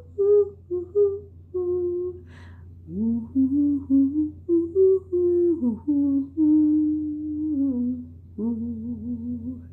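A person humming a slow tune without words, holding notes that step up and down in pitch.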